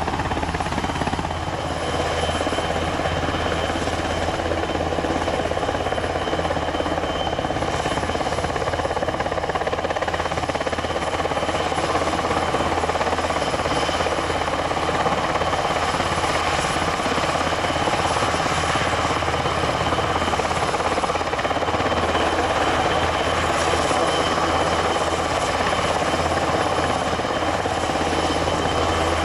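Airbus NH90 TTH helicopter's twin turboshaft engines and rotors running on the ground: a steady turbine whine over continuous rotor noise.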